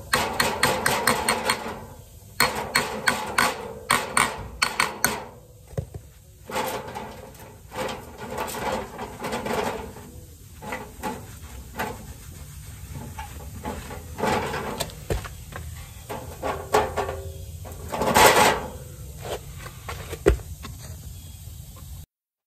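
Tools and metal parts being handled: a quick run of clicks and knocks over the first five seconds, scattered clatter after that, and a louder rushing scrape about eighteen seconds in. The sound cuts off just before the end.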